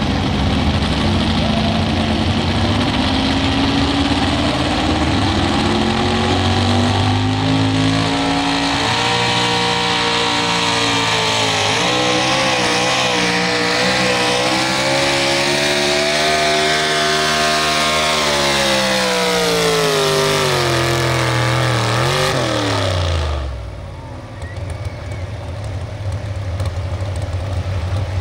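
Supercharged pulling-truck engine at full throttle during a pull: its pitch climbs over the first several seconds, holds with a wavering note, then falls away, and the engine shuts off about 23 seconds in. A quieter low engine hum follows.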